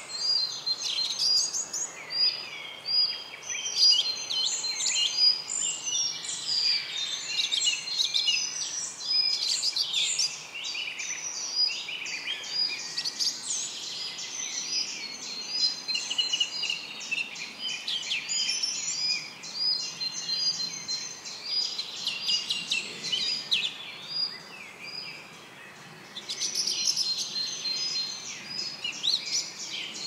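Several songbirds singing over one another in a forest: a dense, overlapping chorus of whistles, trills and chirps. It thins out a little past the middle and grows busier again for the last few seconds, over a faint steady background rush.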